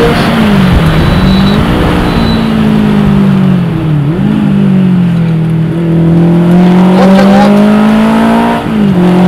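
Rally car engine driven hard on a special stage, heard from inside the cabin. Its pitch climbs under acceleration and drops back sharply several times, near the start, around a second and a half in, around four seconds in and near the end.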